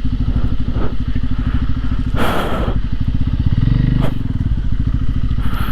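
Motorcycle engine running at low revs with a steady, even pulse. It swells briefly a little past the middle, and a couple of short noisy rushes cut across it about two seconds in and again about four seconds in.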